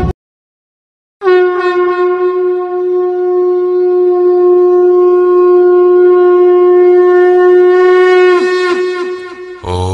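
A conch shell (shankh) blown in one long, steady note that starts about a second in. Near the end its pitch wavers and dips a few times as the note tails off.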